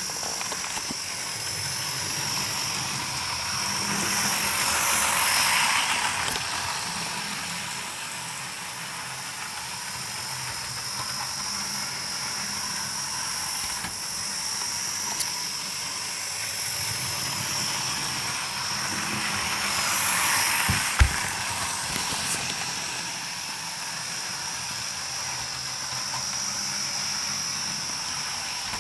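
Hornby Thomas model locomotive's small electric motor whirring as it runs around the track pulling two coaches, with the wheels rattling on the rails. The sound swells louder twice, about fifteen seconds apart, and there is one sharp click near the end of the second swell.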